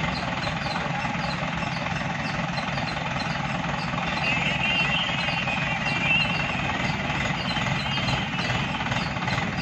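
Diesel engine of an ACE pick-and-carry hydraulic mobile crane running steadily with a regular knocking beat. A wavering high whine rises over it between about four and six seconds in.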